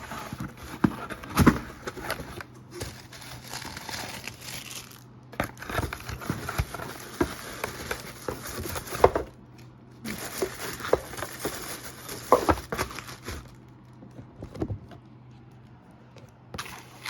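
Plastic and cardboard packaging of a toothbrush holder being opened and handled: crinkling and rustling with sharp clicks and knocks, in bursts with short pauses, growing sparser near the end.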